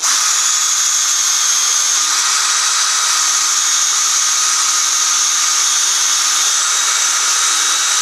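Electric drill starting suddenly and running steadily at constant speed, boring a bolt hole through the wooden benchwork leg and frame.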